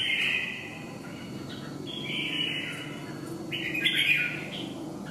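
Caged red-whiskered bulbul singing in short, loud warbled phrases: one ends just after the start, another comes about two seconds in, and a third about three and a half seconds in. A steady low hum runs underneath.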